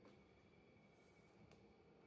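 Near silence: room tone with a few faint clicks.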